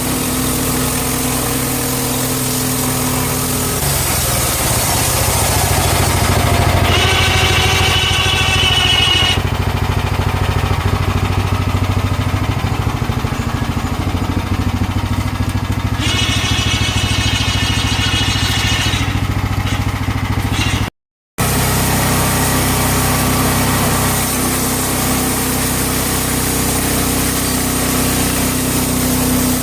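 Portable band sawmill's gas engine running steadily as the band blade saws a small cherry log into slabs, with a higher whine coming in twice during the cut.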